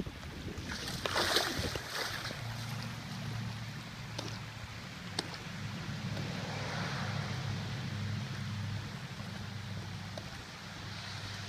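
Storm runoff rushing across a flooded street: a steady wash of flowing water over a low, even rumble. A brief, louder rush of hiss comes about a second in.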